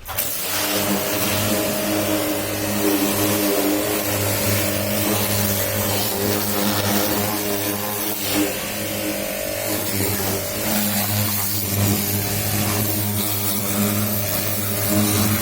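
A high-pressure washer running steadily: a constant motor hum with an even hiss of spray over it.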